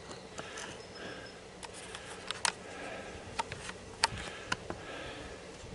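Camera handling noise as the camera is moved in closer: a few scattered light clicks and knocks over a faint background hiss.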